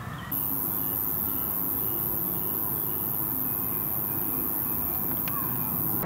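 Insect stridulation: a steady, very high-pitched buzz that starts suddenly a moment in and cuts off abruptly at the end.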